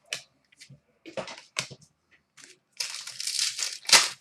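Trading cards and their pack wrapper being handled: a series of short rustles and scrapes, with a longer crinkling stretch about three seconds in and a sharper crackle near the end.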